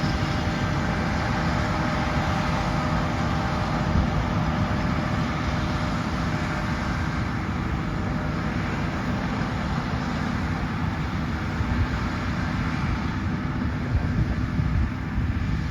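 John Deere S780 combine running steadily while cutting wheat, its engine and harvesting machinery making a constant drone.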